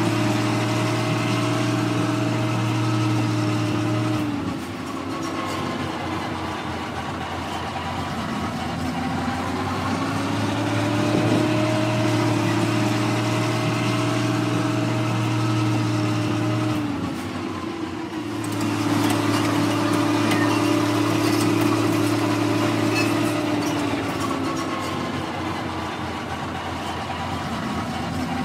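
Tank engine running, its pitch dropping and climbing back up every six or seven seconds as it idles and revs.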